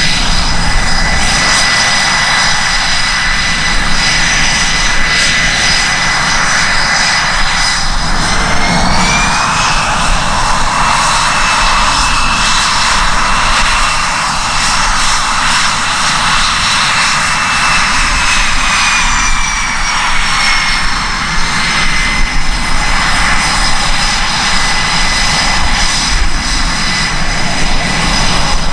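A Boeing EA-18G Growler's twin General Electric F414 turbofan engines running at taxi power: a steady high whine over a rushing hiss. About eight seconds in, the whine rises in pitch as the engines spool up a little. It holds, then sinks back down between about nineteen and twenty-two seconds in.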